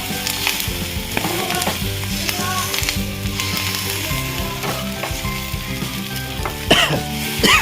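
King chillies sizzling as they fry in a hot pan, stirred as they cook, with a couple of louder sharp sounds near the end.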